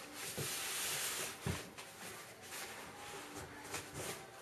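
Packaging rustling and cardboard scraping as a heavy DJ controller is lifted out of its shipping box, with a few dull thumps, the clearest about a second and a half in.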